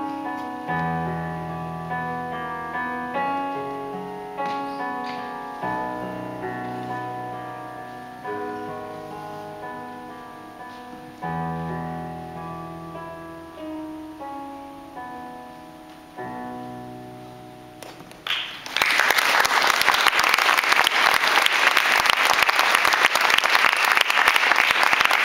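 Solo piano playing the slow, quiet closing phrases of a piece, chords struck every second or two and getting softer until the last one dies away. About 18 seconds in, an audience bursts into applause, louder than the piano, and the clapping keeps going to the end.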